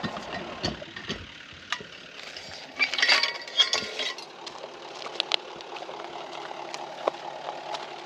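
A vehicle engine idling steadily under scattered clicks, with a burst of metal clinking and rattling about three seconds in as a steel farm gate's chain is unhooked.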